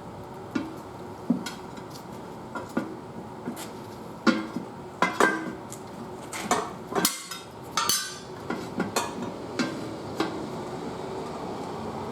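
A metal tire-changing bar clanking and knocking against a steel wheel rim and the manual tire changer as a tire bead is worked on by hand. The knocks come irregularly, a dozen or so, some with a short metallic ring, and thin out near the end.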